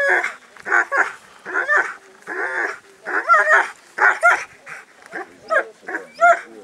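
German shepherd dog yipping and whining in a rapid run of short high-pitched cries, about two a second.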